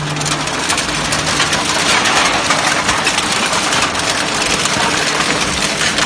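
Automatic aluminium can baler compacting used beverage cans: a dense, continuous crackling and crunching of aluminium cans being crushed, with the machine's motor running underneath.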